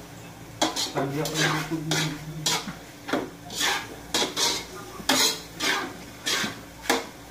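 A spatula scraping and knocking against a wok as food is stir-fried, in about a dozen short strokes half a second to a second apart.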